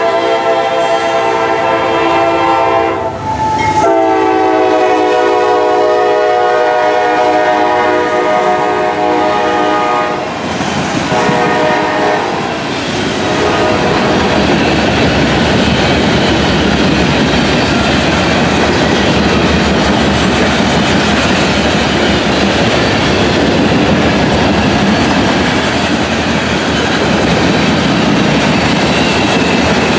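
Freight locomotive's multi-chime air horn sounding a long blast, a brief break, then a longer blast whose chord sags slightly in pitch, and a short blast about eleven seconds in. The horn then gives way to the steady rumble and clickety-clack of the train's wheels rolling past.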